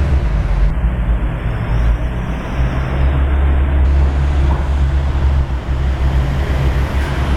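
Ferrari California's V8 engine idling steadily, a deep, even rumble.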